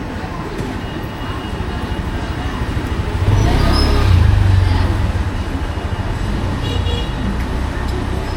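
Street traffic noise: a steady low rumble of road vehicles, with one passing close and swelling loud about three seconds in before easing off.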